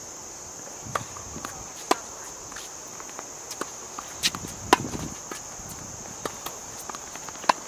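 Tennis rally: sharp pops of the ball off racquet strings and off the hard court, several spaced out, the loudest about halfway through and near the end. A steady high insect chorus runs behind.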